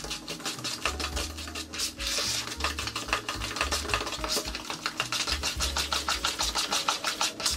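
Rapid, rhythmic scraping strokes of a utensil stirring in a mixing bowl, several strokes a second, over background music with a steady bass.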